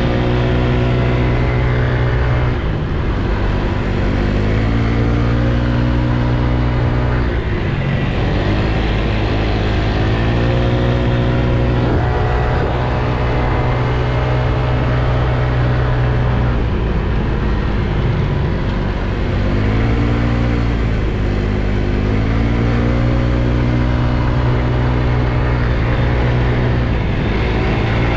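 Small motor scooter's engine running under throttle. Its pitch rises and then holds about four times, dropping back in between as the throttle is eased and opened again.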